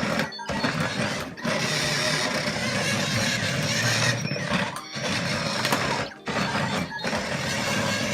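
Drive motors and gears of a remote-control inflatable R2-D2 toy whirring in bursts as it is driven on carpet, cutting out briefly a few times between presses of the remote.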